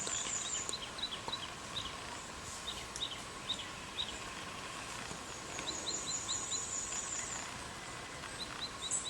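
Small birds chirping outdoors. Two rapid runs of very high repeated notes, one at the start and another about six seconds in, with short falling chirps scattered throughout. A faint steady hum and background noise lie beneath.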